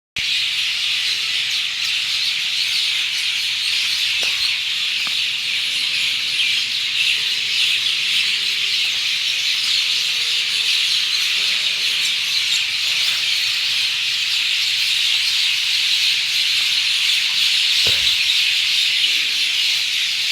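Dense dawn chorus of many birds chirping and singing at once, a steady high-pitched wash of overlapping calls.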